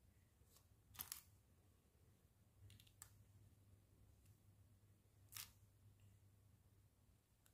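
Faint clicks of small plastic mini building bricks being pressed and snapped together by hand: a quick double click about a second in, a couple more near three seconds, and one sharper click a little past five seconds.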